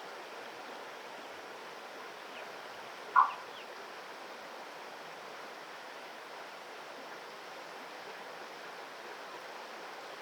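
Steady rushing of flowing river water, with one short, loud call about three seconds in.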